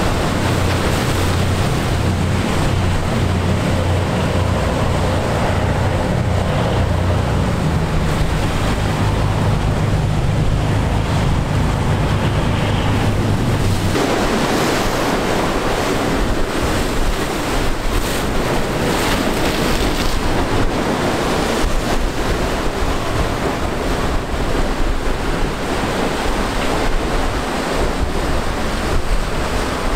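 A party fishing boat's diesel engines drone with a steady low hum over rushing water and waves. About halfway through, the engine hum stops abruptly, leaving wind buffeting the microphone and waves breaking and surging.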